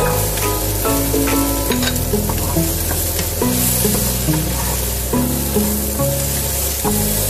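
Diced vegetables (Brussels sprouts, potato, onion and carrot) sizzling in a hot non-stick pan as carrots are tipped in and then stirred with a wooden spatula. Instrumental background music plays over it.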